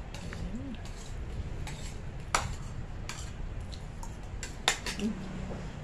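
Metal spoons clinking against ceramic plates and bowls during a meal: a few separate sharp clinks, the loudest about three-quarters of the way through.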